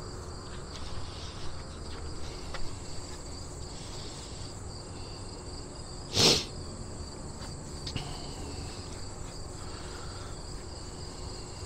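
Insects trilling steadily in two high, even tones. About halfway through comes one short, sharp knock, the loudest sound here, with a few faint clicks around it.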